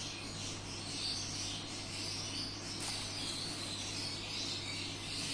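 Steady background hiss with a faint low hum, no distinct event.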